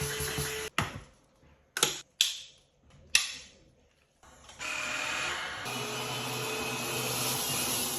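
Cordless vacuum cleaner: a few sharp clicks and knocks of handling, then the motor starts about four and a half seconds in and runs steadily.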